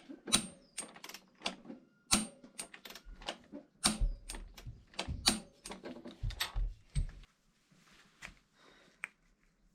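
Ratcheting torque wrench clicking in quick, irregular strokes, with metal tool clinks, as the non-drive-side bottom bracket cup is tightened to 55 Nm. The clicking stops about seven seconds in, and only a few faint clicks follow.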